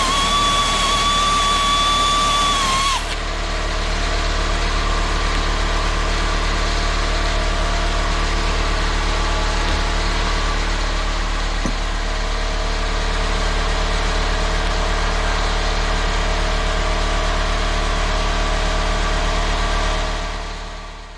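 Air grinder running flat out with a high whine. About three seconds in, the whine gives way to a lower, rougher running sound. It winds down and stops near the end, as a grinder does after being run to the point of being ruined.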